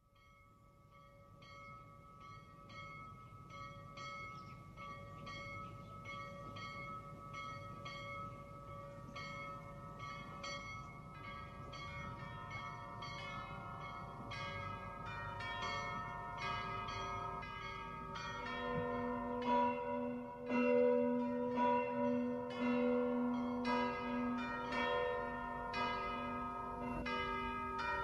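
Bells ringing in a quick, steady run of strikes, each tone ringing on. The bells fade in from silence and grow louder, and a deeper bell joins about two-thirds of the way through.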